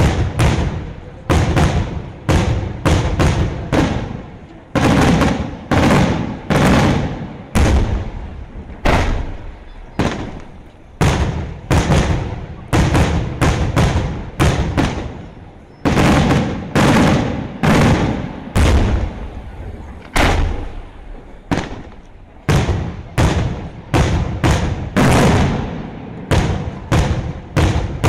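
Daytime fireworks display: aerial shells bursting in a steady run of loud bangs, about one or two a second, each bang followed by a fading echo.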